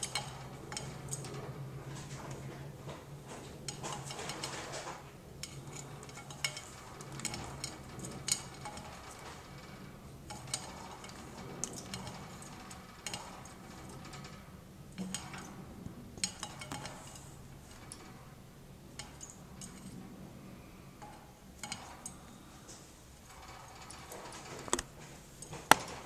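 Cockatiel bathing in a shallow plastic birdbath dish: scattered clicks and clinks of beak and feet on the dish, with short splashes of water and one louder click near the end.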